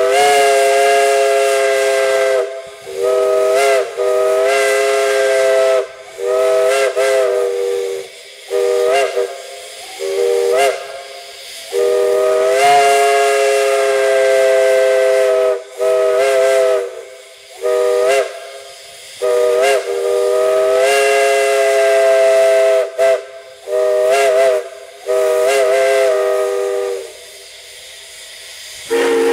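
Multi-note chime steam whistle blown in a series of blasts, some long and held, others short toots that slide up in pitch as the valve opens. The whistle stops near the end, leaving the hiss of steam.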